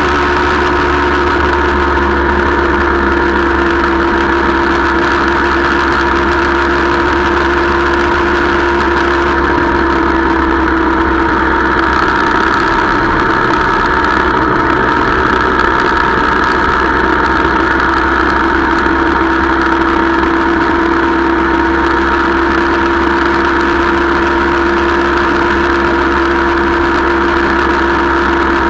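Motorcycle engine running at a steady cruising speed. The note holds constant, wavers briefly about halfway through, then settles again.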